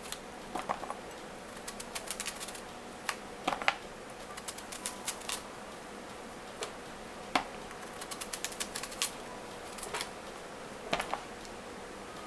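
A knife slicing thin rounds off a squash held in the hand: sharp crisp clicks in quick irregular runs, with pauses between runs.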